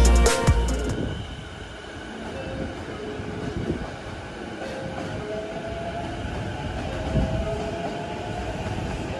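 Local train running on rails: a steady rumble with faint whining tones, one of which rises slightly in the second half. The opening music fades out about a second in.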